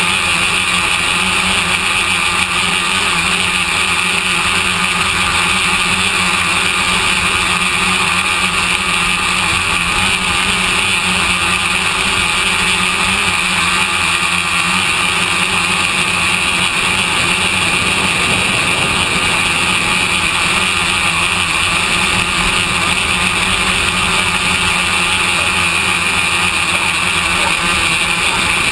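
Radio-controlled tricopter's electric motors and propellers running steadily in flight, a constant high whine over a rushing hiss.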